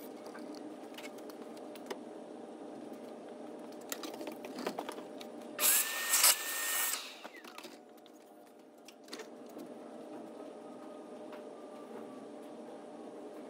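A shop vacuum runs in a short loud burst of about a second and a half, its hose nozzle pushed into an open intake port of the engine, then cuts off. A few light tool clinks come just before it.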